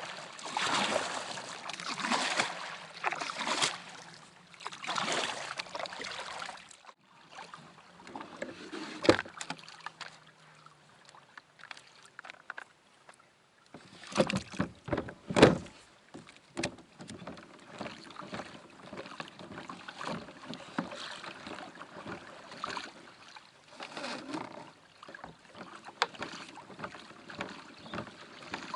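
Water sounds around a fishing kayak: splashing and sloshing against the hull, broken by a few sharp knocks on the kayak partway through.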